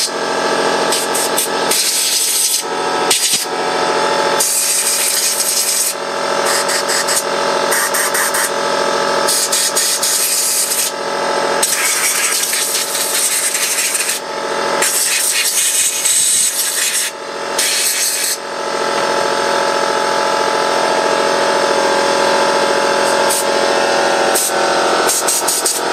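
Repeated blasts of compressed air hissing through the carburettor's jets and passages to clear them, some short, some held for a second or two, over a steady hum.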